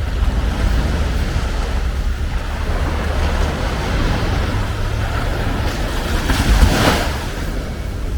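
Ocean waves washing onto the shore, one wave louder about six and a half seconds in, with wind rumbling on the microphone.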